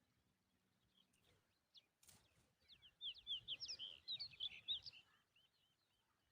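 A rapid, dense burst of high-pitched chirps from common tailorbirds, lasting about two and a half seconds. Fainter chirps trail off after it.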